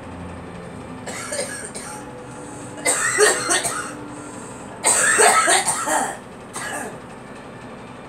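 A girl coughing in bouts: a short weaker bout about a second in, two louder, longer bouts around three and five seconds in, and one brief cough near the end.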